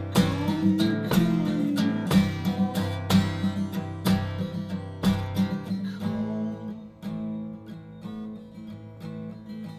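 Acoustic guitar strummed in a steady rhythm, then played more softly and quietly from about six seconds in.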